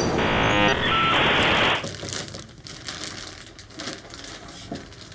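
A loud hiss of static with stuttering electronic bleeps cuts off abruptly about two seconds in; then a plastic bag crinkles and rustles as it is handled.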